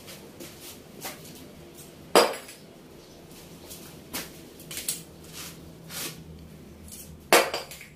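Metal tongs and a burning sawdust charcoal briquette clinking and knocking as the briquette is picked out of a metal grill tray, dropped on a concrete floor and picked up again. There are two sharp, loud knocks, about two seconds in and near the end, with lighter clinks between them.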